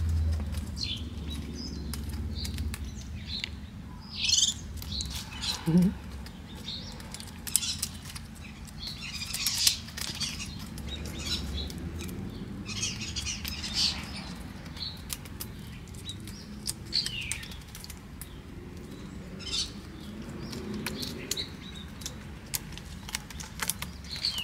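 A domestic cat's claws scratching and raking tree bark in repeated bursts of short scratchy strokes, with birds chirping faintly in the background.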